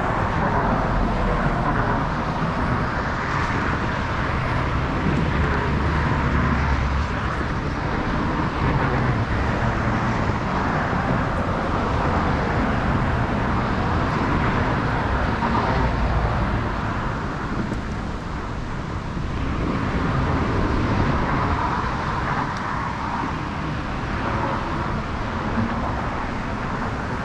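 Steady road traffic noise, cars running past one after another with slow swells in level.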